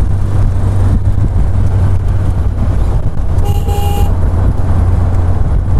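Wind buffeting and engine rumble inside an open-top Maruti Gypsy jeep driving along a paved road, with one short horn toot about three and a half seconds in.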